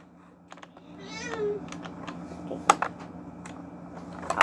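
Scattered clicks and knocks from a plastic baby toy being handled and pressed. About a second in there is a brief wavering high-pitched cry or tone.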